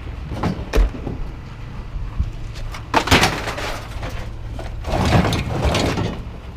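Knocks, clanks and scraping of scrap metal being unloaded over a steady low vehicle engine idle, with heavier scraping about three seconds in and again near the end.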